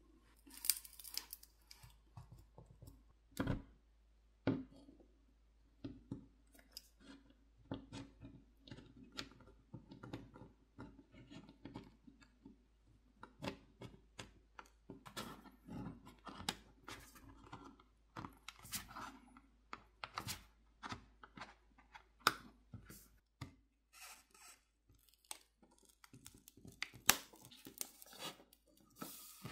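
Plastic pry picks working around the edge of an iFLYTEK AINOTE Air 2 e-ink tablet's glued screen: scattered clicks, scrapes and crackles of adhesive letting go, with a few sharper snaps, as the screen is prised off the back housing.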